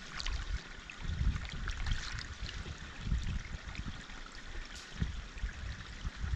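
Shallow stream trickling over rocks, a steady light rush of water, with irregular low thumps and bumps through it.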